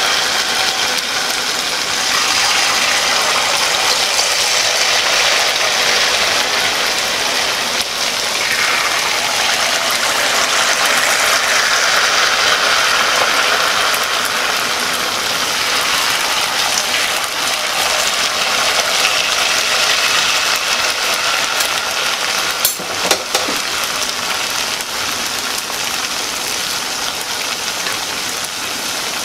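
Wheat-flour batter pakoras deep-frying in hot oil, a steady loud sizzle. A couple of sharp clicks a little past two-thirds of the way through.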